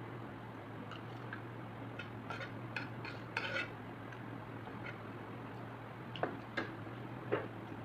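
Cutlery clinking and scraping against a dish during eating: scattered light clicks, a cluster of louder ones about midway, and three sharp clinks near the end.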